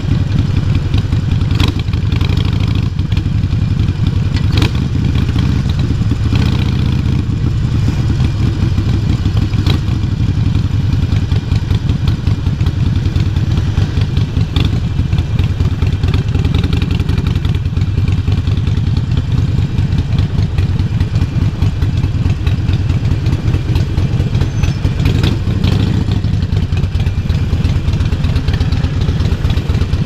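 Harley-Davidson Forty-Eight XL1200X's 1200 cc air-cooled V-twin running through a Vance & Hines full exhaust system: a low, steady engine note with a few short clicks.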